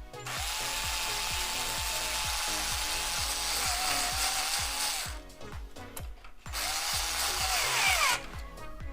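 Electric screwdriver driving screws while fans are fastened to a water-cooling radiator: a long run of about five seconds with a steady whine, then a shorter run whose whine falls in pitch as the motor spins down.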